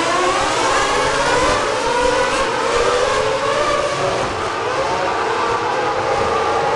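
Several Formula One cars' V8 engines pulling away from the grid for the formation lap. Their overlapping pitches rise and fall as each car accelerates and changes gear.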